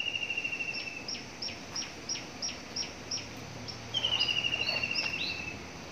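Songbird singing: a rapid, pulsing high trill that sinks slowly in pitch, then a run of short high notes, each sliding downward, about three a second, and a second falling trill about four seconds in.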